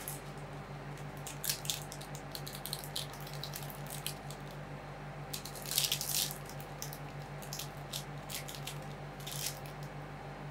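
Steady low hum of an ice cream roll machine's cold plate, with scattered light clicks and scrapes of metal utensils working the ice cream. The densest scrape comes about six seconds in.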